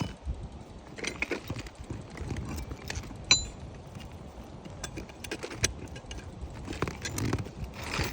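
Irregular scuffs, knocks and sharp clicks of someone moving about on an asphalt shingle roof, with one brief metallic clink a little over three seconds in.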